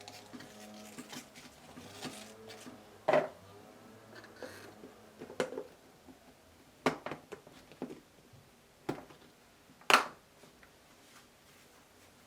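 Scattered sharp clicks and knocks of kitchen utensils and dishes being handled, about six distinct strikes, the loudest about ten seconds in.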